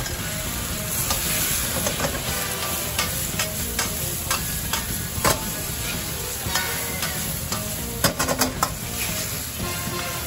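Fried eggplant sizzling in a wok of chili bean sauce, stirred with a metal wok ladle that clinks and scrapes against the pan, with a quick run of clinks about eight seconds in.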